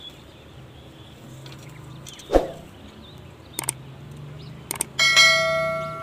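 YouTube subscribe-button sound effect: two quick pairs of mouse clicks, then a bright notification-bell ding that rings and fades over about a second. Earlier comes one short, loud sweep falling in pitch.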